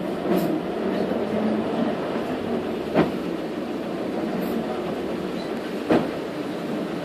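Cabin noise of a Jelcz PR110 CNG city bus under way: a steady engine and road drone, with two sharp knocks about three and six seconds in.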